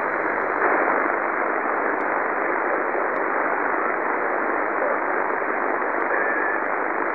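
Shortwave amateur radio receiver on the 40 m band, fed by a YouLoop passive magnetic loop antenna, giving a steady, even hiss of band noise in its narrow single-sideband passband. No station is transmitting.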